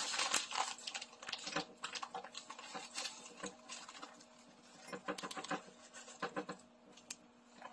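Plastic bag of brown sugar crinkling and rustling as gloved hands handle and open it: irregular crackles and clicks, busiest at the start and sparser later.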